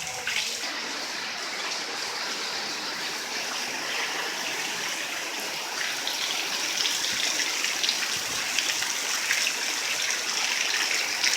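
Heavy rain falling, a steady hiss of water that grows slightly louder in the second half.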